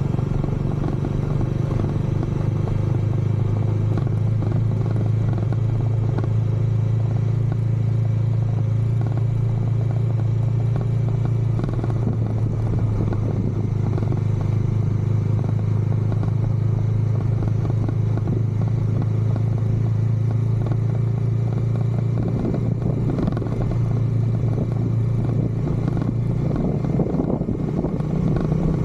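Bajaj Dominar 400's single-cylinder engine running steadily through its stock exhaust.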